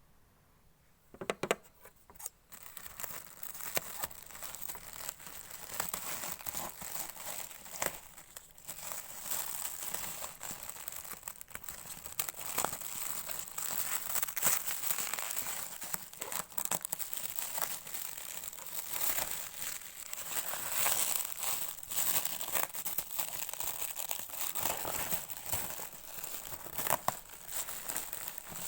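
Packaging being unwrapped by hand: continuous crinkling and tearing with scattered sharp clicks, starting about two seconds in.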